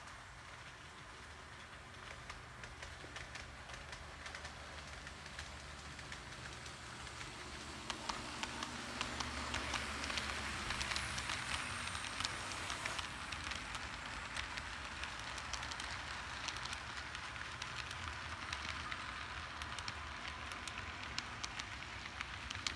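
Model freight train rolling past on its track: a steady rattle with many small clicks of the wheels over the rail joints, growing louder about eight seconds in as the cars come close.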